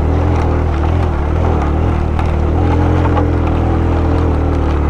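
Suzuki GS150SE motorcycle's 150 cc single-cylinder four-stroke engine running steadily under load as the bike climbs a rough, rocky dirt track.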